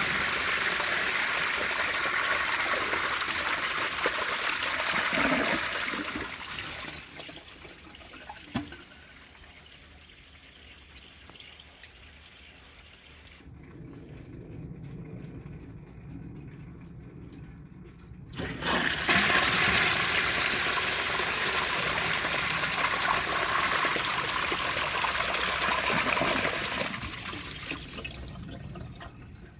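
1929 Kohler Dorking round toilet flushing: a loud rush of water that dies away over several seconds, a quieter stretch, then a second flush that starts suddenly about eighteen seconds in, runs for about eight seconds and tapers off.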